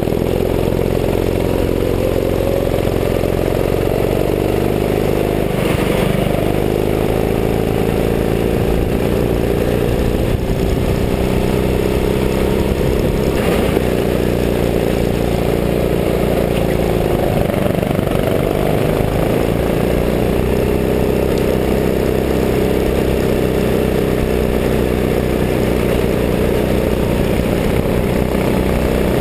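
Go-kart engine running under way, heard from the driver's seat, its pitch rising and falling as the throttle opens and closes through the corners, over a steady rush of noise.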